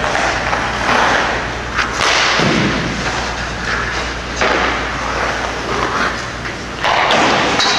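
Ice hockey shooting drill in a rink: skate blades scraping the ice and pucks being shot. It comes as several abrupt noisy bursts, each about a second long, a second or two apart, over a steady background hiss.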